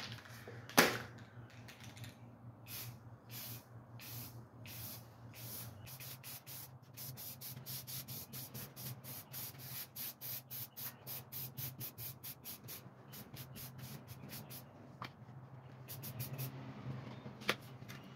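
Aerosol can of olive drab spray paint hissing in many short, rapid bursts, quickening in the middle, as a textured helmet shell is coated. A sharp click comes about a second in, over a steady low hum.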